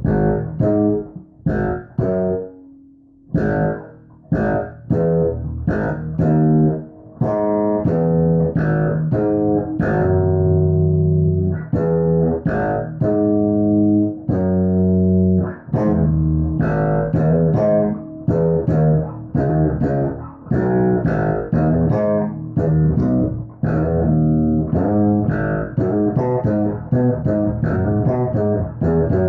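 BC Rich Warlock signature electric guitar being played solo as a sound check: a few separate picked notes and short phrases at first, then continuous riffing that grows quicker past the middle.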